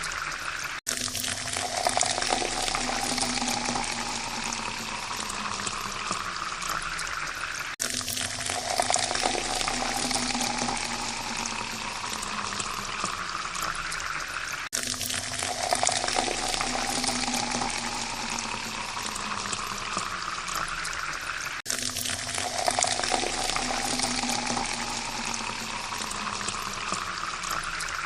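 Water pouring steadily into a glass, the pitch rising as the glass fills. It repeats about every seven seconds, each pour starting again after a brief break.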